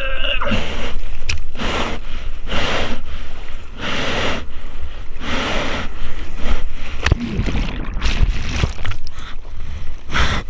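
Seawater splashing and sloshing over a bodyboard-mounted action camera as the rider paddles through whitewater. A rush of splash comes roughly every second or so over a steady low rumble of water and wind on the microphone.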